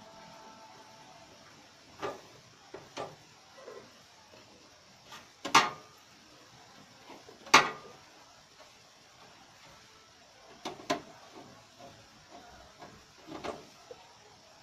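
Scattered metal clicks and knocks from handling a drive in the drive bay of a steel computer tower case, with a screwdriver against the case. Two louder knocks come near the middle.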